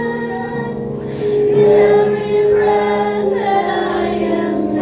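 Worship music: a congregation singing a slow praise song together with instrumental backing, voices holding long notes.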